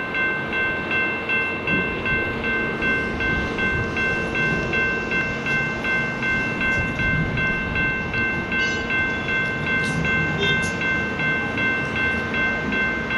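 Railroad crossing bell ringing steadily at about two and a half strokes a second, over the rumble of a passing train.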